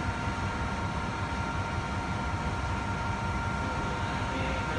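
Industrial Favretto grinding machine running steadily: an even mechanical hum and rumble of its motors, with two steady whining tones on top.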